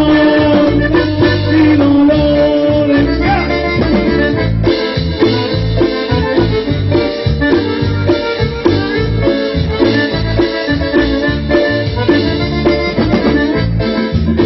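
Band music without singing: an accordion melody over a steady bass and drum beat in a Latin dance style.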